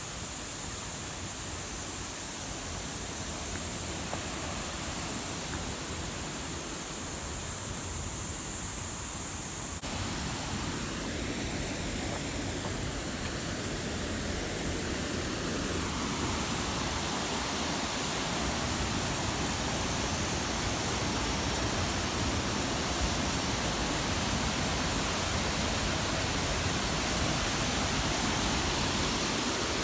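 Waterfall rushing as a steady, even roar of water, turning abruptly brighter and a little louder about a third of the way through.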